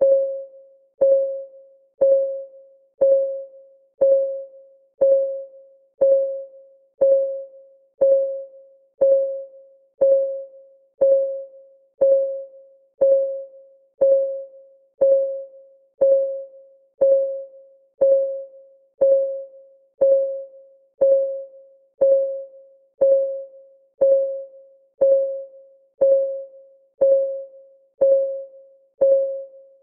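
Countdown timer's clock-ticking sound effect: one tick a second, steady and even, each tick a short pitched tone that dies away quickly.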